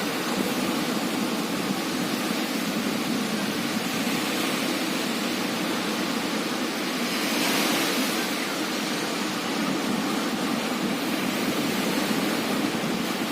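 Ocean surf breaking on a beach: a steady rush of waves, with one wave crashing more loudly about halfway through.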